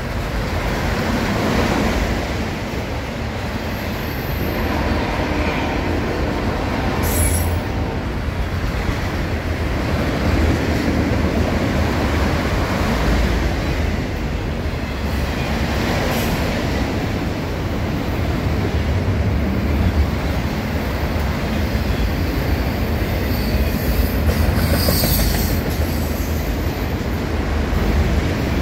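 Enclosed autorack cars of a BNSF freight train rolling past: a steady rumble and rattle of steel wheels on the rails, with brief high-pitched wheel squeals about seven seconds in and again near the end.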